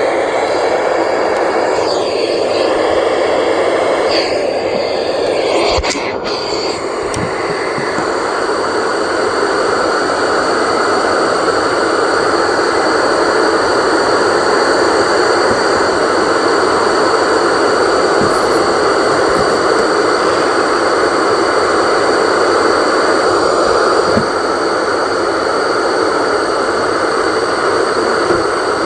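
Steady radio static, an even hiss held in a narrow band with almost no low end, like an open weather-radio channel carrying no voice.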